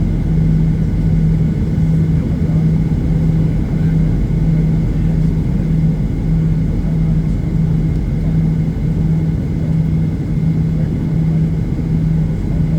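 Boeing 737-800 engines idling, heard from inside the passenger cabin: a steady low rumble with a hum that pulses on and off about one and a half times a second.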